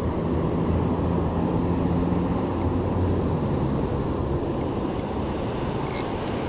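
Steady rush of river water pouring over a low dam, with a low engine hum that fades out after about three seconds. A couple of light clicks come near the end.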